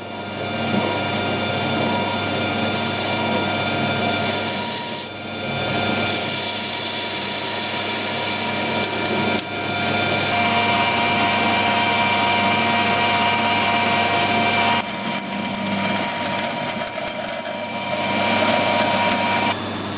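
Metal lathe running steadily with a whine from its headstock gears while a carbide-tipped tool cuts across the end of a turning stainless steel bar. Near the end, a freshly sharpened twist drill in the tailstock bores into the bar, with a hissing cutting noise over the machine's hum.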